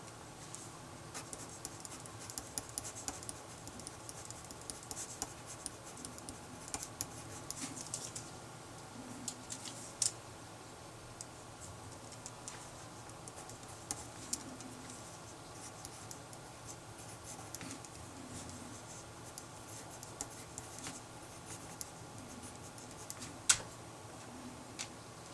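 Writing by hand on paper: irregular short scratching strokes of a pen on the page, with a few sharp taps, the loudest near the end.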